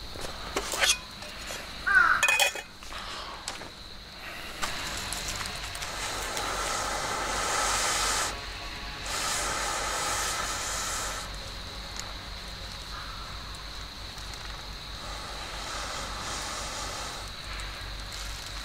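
Metal clinks as a cooking pot and its lid are handled over a wood fire in the first few seconds, then a steady hiss from the fire and the lidded pot of potatoes heating on it, louder for a few seconds around the middle.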